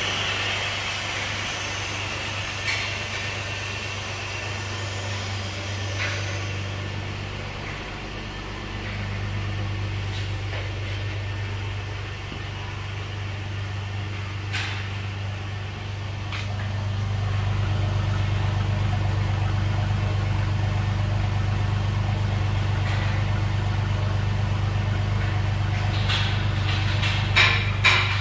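Jeep Liberty 3.7L V6 engine idling steadily, a little louder in the second half. A few sharp clicks near the end.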